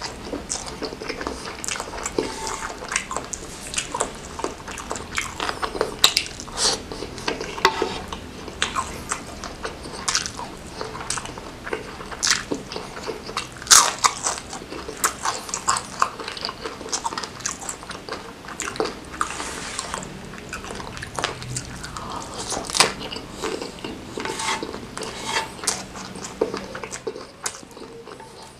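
Close-miked eating: wet chewing and biting of a sinewy beef meatball in chili sauce and a crisp fried piece. Irregular sharp crunches and mouth clicks come every second or so.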